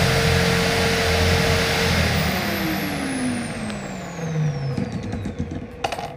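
Bosch corded electric drill mounted in a bench drill-press stand, running at speed. About two seconds in the motor is let go and its whine winds down, falling in pitch over about three seconds. A short click comes near the end.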